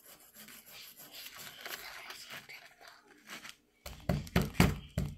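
Faint scraping and rasping of a digging tool working into a gem dig kit's softened plaster block, then a quick run of sharp knocks, about half a dozen in a second and a half, near the end.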